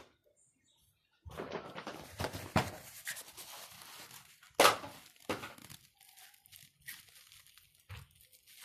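Crinkling, rustling noise that sets in about a second in, with one loud sharp tap about halfway through and scattered clicks and taps after it.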